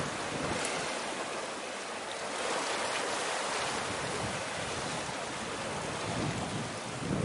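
Steady rushing wash of sea waves and breeze, an even hiss with no distinct engine or horn tone.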